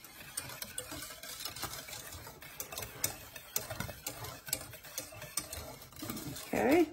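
Wire whisk stirring a thick, hot liquid in a stainless steel saucepan, its wires clicking and scraping against the pan in a quick, irregular run as Jell-O powder is whisked into the thickened strawberry-pie glaze. A short voice sound comes near the end.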